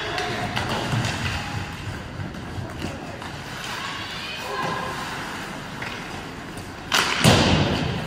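Ice hockey game in a rink: steady crowd murmur with scattered knocks, then a loud bang about seven seconds in that rings on for about a second.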